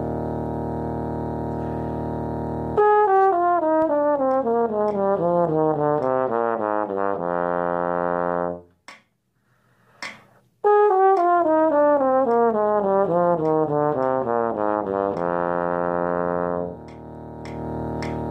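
Bass trombone playing a quick descending run of notes that settles on a held low note, pausing briefly for breath, then playing the same phrase again. A steady drone tone sounds alone for the first few seconds and again near the end.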